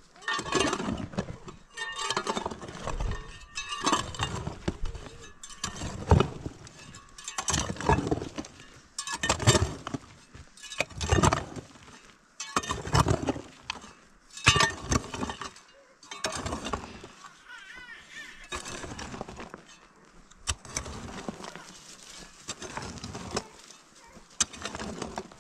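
A hand hoe's metal blade chopping into dry, stony earth and scraping soil back, in regular strokes about one every second and a half to two seconds.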